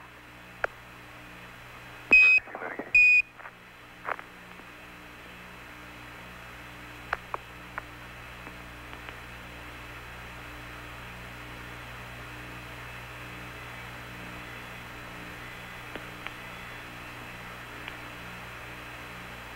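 Apollo air-to-ground radio loop: two short high beeps about a second apart near the start, the Quindar tones that key a Mission Control transmission on and off, with a brief burst of noise between them. The rest is the steady hiss and hum of the open radio channel, with a few faint clicks.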